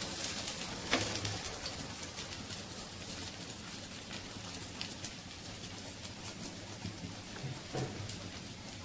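Hot oil sizzling and crackling around a patty shallow-frying in a non-stick frying pan, with one sharp knock about a second in.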